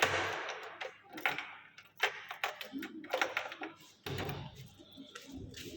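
Irregular light taps and clicks, scattered unevenly.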